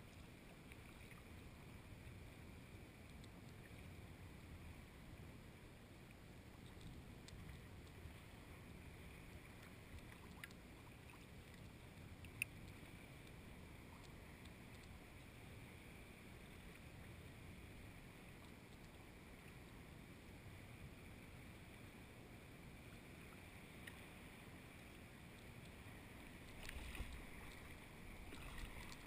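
Faint water sounds of a sea kayak gliding through calm sea water. A single sharp click comes about twelve seconds in, and a brief louder swish comes near the end.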